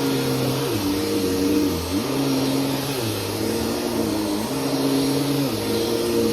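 Bissell PowerForce Helix bagless upright vacuum running, with a steady motor whine over rushing air; its lower tones dip in pitch and recover every second or two. The owner says the motor is already failing and arcing badly.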